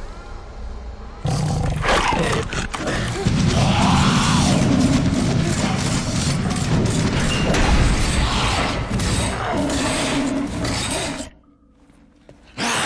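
Horror-action film soundtrack: a loud, tense orchestral score mixed with the growls of infected zombie dogs. It starts fairly quiet, swells loud about a second in, drops suddenly to near quiet about eleven seconds in, and comes back loud just before the end.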